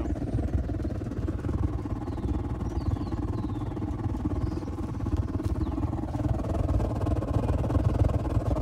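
Smudge pot orchard heater burning waste motor oil, its pulsing combustion making a steady, rapid, fluttering low rumble (the 'chloof' of the burner).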